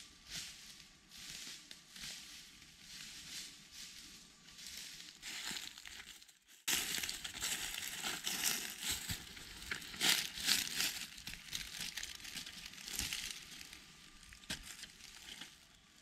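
Irregular crunching and rustling. It drops away briefly about six seconds in, then comes back louder and fades near the end.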